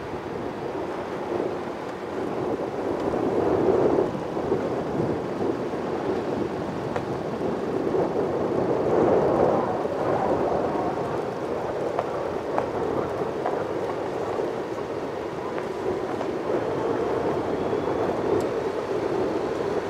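A vehicle driving on a snow- and ice-covered road: steady tyre and road noise, with small scattered clicks and gentle swells in level.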